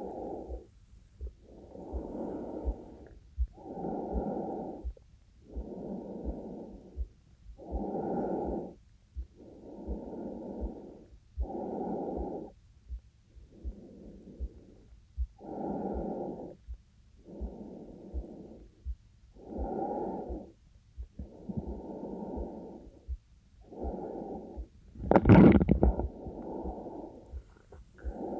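A woman's slow, even breathing, muffled and close, with an in- or out-breath about every two seconds. Faint low heartbeat thumps run underneath. About 25 seconds in there is a louder, sharper breath or sniff.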